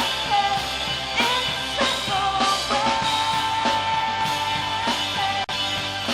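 Live rock band playing a passage without words: drum kit hits under guitars, with a long held melody note that bends between pitches. The sound cuts out for an instant about five and a half seconds in.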